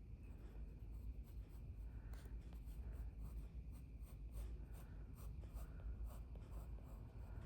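Pencil sketching lightly on paper: faint, short scratchy strokes, one after another.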